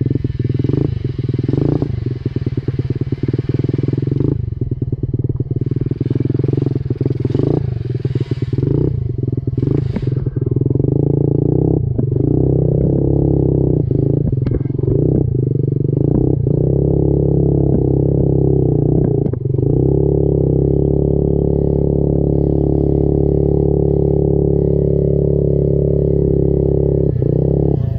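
Minibike engine running as the bike rides a muddy trail. Rattling and scraping noise rides over it through the first ten seconds or so, then the engine settles into a steadier, even note.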